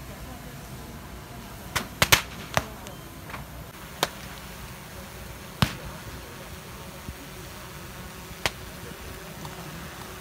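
Firecrackers going off in the burning king boat: single sharp bangs at irregular intervals, a quick cluster of three or four about two seconds in, then single reports around four, five and a half and eight seconds in, over a steady background of crowd noise.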